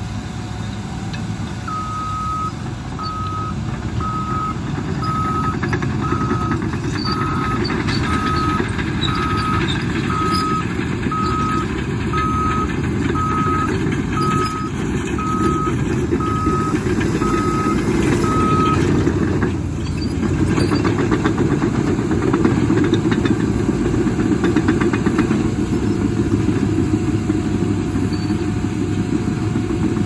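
Caterpillar crawler bulldozers' diesel engines and steel tracks running under load. A reverse alarm beeps steadily about once a second for roughly the first two-thirds. After a brief dip in level the engine and track noise comes back louder, with track clatter.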